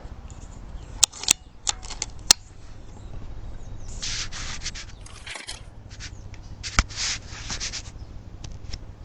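Handling noise from a rifle and its thermal scope: a quick run of sharp clicks, then rubbing and rustling with one more sharp click in the middle.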